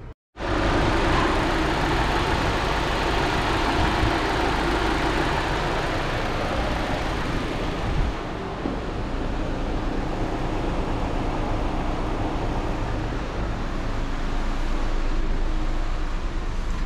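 Chevrolet Trax's four-cylinder engine idling steadily, just after new spark plugs were fitted to chase a P0300 random misfire. It starts abruptly a moment in, after an edit.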